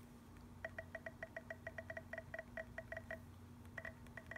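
iPhone keyboard typing sounds from the Soft for iOS 9 jailbreak theme's custom sound pack: a fast run of short pitched ticks, one per key tap, about seven a second, each with a low and a high note. They stop briefly after about three seconds, then start again near the end.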